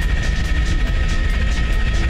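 Helicopter in flight: a steady turbine whine over a heavy low rumble, with regular rotor beats about four or five times a second.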